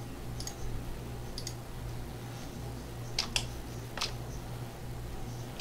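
A handful of short, sharp clicks from a computer mouse and keyboard at a desk, two of them close together about three seconds in, over a steady low hum.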